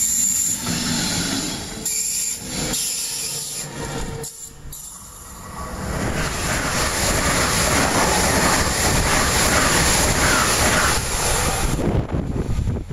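A DB double-deck regional train rolling away along the platform, its wheels running on the rails. After a cut, an ICE high-speed train approaches fast over a steel truss bridge: a wide rushing rumble that builds from about halfway through and stays loud to near the end.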